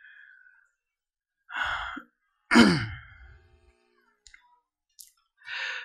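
A man breathing close to a podium microphone: a breath in, then a voiced sigh whose pitch falls away, and another breath in near the end.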